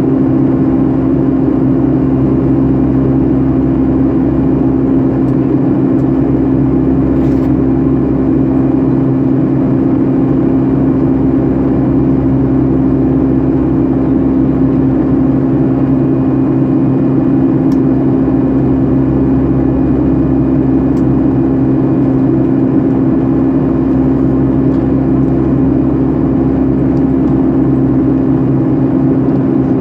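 Cabin noise of a Boeing 757-300 airliner: a steady, loud drone of the jet engines and rushing air, with a constant low hum.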